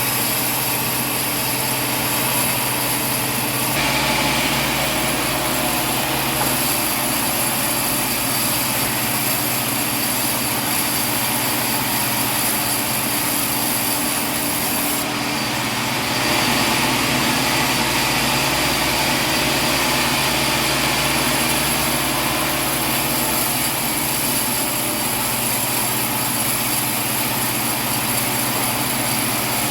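Sawmill machinery running with a steady mechanical drone and hum. The sound shifts abruptly about four seconds in and again around fifteen to sixteen seconds.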